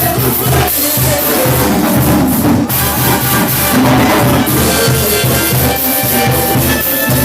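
Cumbia band music with a steady beat.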